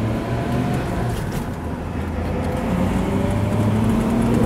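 1965 Ford Mustang's 289 V8 accelerating with the four-speed manual, heard from inside the open convertible: the engine pitch climbs, drops at a shift about two seconds in, then climbs again in second gear and gets louder.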